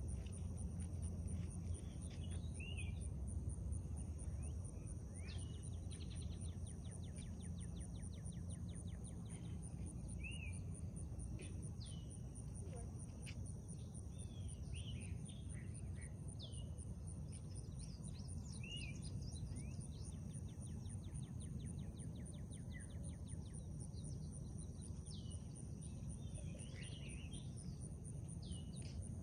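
Outdoor evening ambience: birds calling in short, scattered chirps and whistles over a steady high-pitched insect drone, with a low steady rumble underneath.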